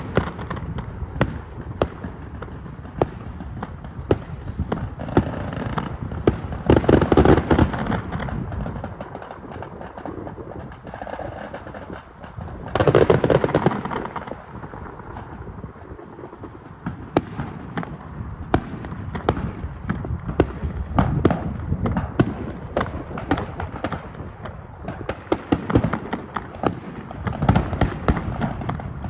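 Fireworks display: rapid, overlapping cracks and bangs of shells bursting, with heavier volleys of booms about a quarter of the way in, near the middle and near the end.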